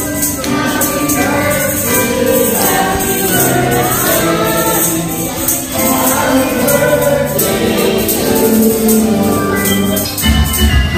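A group of voices singing a birthday song together, with rhythmic hand clapping keeping the beat.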